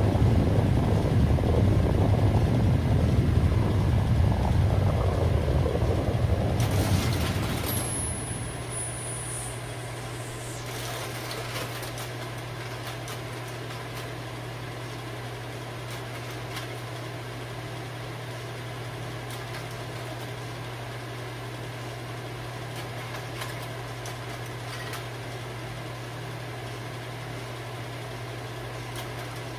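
A loud, deep rumble fades out over the first eight seconds or so. After it, a bank of slide projectors runs with a steady fan hum, broken by a few faint clicks.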